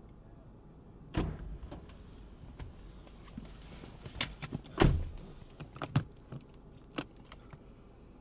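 Handling noise of someone filming: scattered clicks and knocks over a faint steady background, the loudest a thump about five seconds in.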